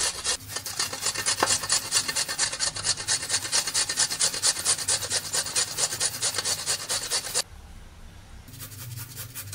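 Boiled potato rubbed back and forth across a stainless-steel hand grater: a quick, even run of rasping scrapes, one with each pass. The strokes stop briefly near the end, then start again.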